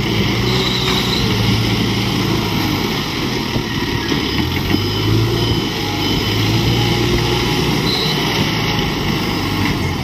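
Engine running steadily with a low hum.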